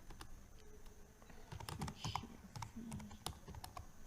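Computer keyboard typing: a quick, irregular run of key clicks starting about a second and a half in, as an account name is entered.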